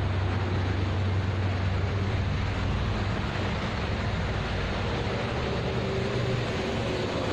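Steady toll-road traffic noise, vehicles running past in a continuous wash, with a low engine hum that fades after about six seconds.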